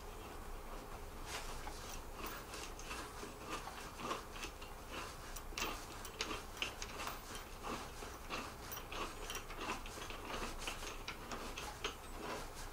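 Irregular small metal clicks and ticks of an assembly bolt being turned by hand into the frame of an upturned upholstered club chair, finger-tight before the final tightening with the tool.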